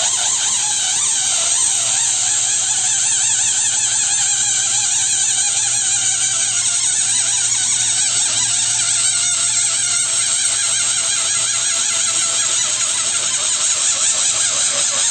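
Electric balloon pump running steadily, blowing air into a balloon with a strong hiss and a low motor hum, while wavering squeaky tones rise and fall over it.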